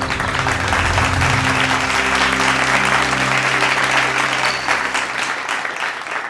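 Applause sound effect, a dense crackle of many hands clapping, over a held low musical chord that fades out about five seconds in.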